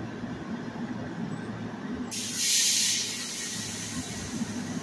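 Commuter train standing at a station platform with a steady low hum, and a loud burst of hissing compressed air about two seconds in that lasts under a second: an air release from the train's pneumatic brake system.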